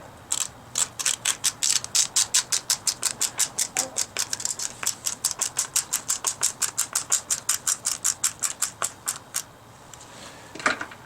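Hand ratchet with an Allen bit clicking steadily, about five clicks a second, as it drives a handguard mounting screw home. A single louder knock near the end.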